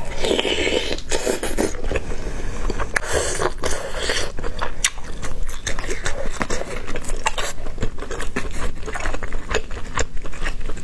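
A person chewing and biting food into a close microphone, with many small sharp clicks of the mouth and food throughout.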